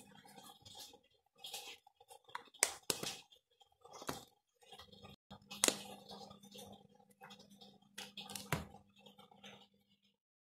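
Hands handling a handmade paper-and-card travel journal. Paper rustles, with a few sharp taps and clicks as the book is closed, fastened and set down on a cutting mat. A faint steady hum sits in the background.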